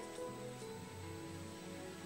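Background music: a slow melody of held notes.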